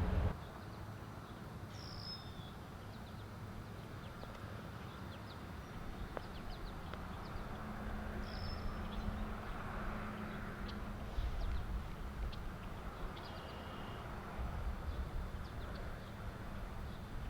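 Outdoor waterside ambience: a few short, high bird chirps over a steady low rumble.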